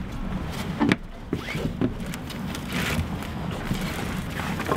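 A netting lobster pot and its rope being handled on a boat deck: scattered rustles and light knocks over a steady low rumble.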